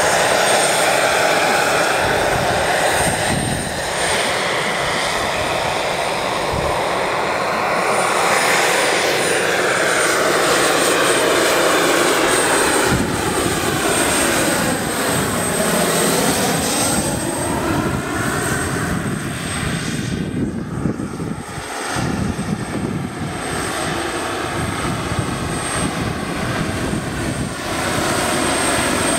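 Large-scale RC Mi-24 helicopter in flight, its Pahl Taurus two-stage turbine giving a steady high whine over the chop of its five-blade main rotor. The pitch dips and rises again about halfway through as it passes close.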